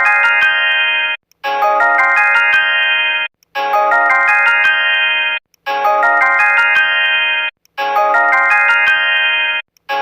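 Smartphone ringtone: a short melodic phrase of stepping electronic notes that loops about every two seconds, with a brief silence between repeats.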